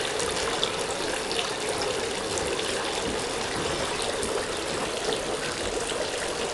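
Garden fountains splashing and trickling steadily: water falling from the bowls of a tiered stone fountain into its basin.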